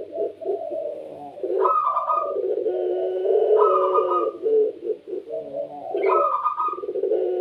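Puter pelung dove (domestic barbary dove) cooing in its drawn-out, resonant style: long low coos, with a brief higher note opening a new phrase three times.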